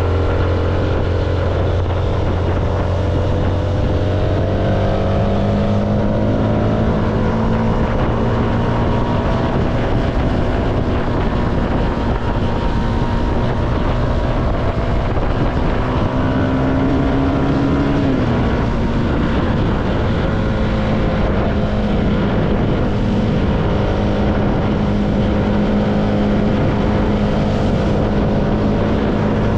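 CFMoto motorcycle engine running under way, its note climbing a few seconds in and again just past halfway, then dropping sharply, with wind rushing over the microphone throughout.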